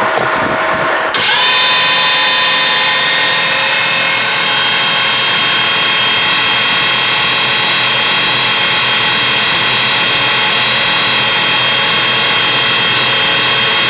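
Angle grinder motor driving a homemade electric outboard at full throttle: a loud, steady electric-motor whine. About a second in it jumps louder and rises slightly in pitch, then holds steady under a heavy load of about 160 amps from the 12-volt battery.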